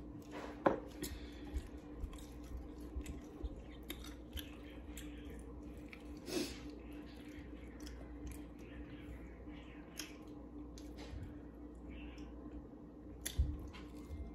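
A person chewing and biting into fried chicken close to the microphone, with a run of small wet clicks and snaps. A steady low hum runs underneath.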